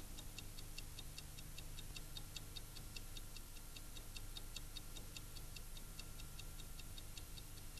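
Faint, fast, even ticking like a clock, about five ticks a second, over a low steady hum.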